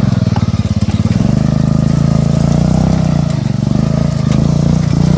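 Riding lawn mower engine running loud and close as the off-road mower is driven. About a second in, the even firing pulses give way to a heavier, wavering note.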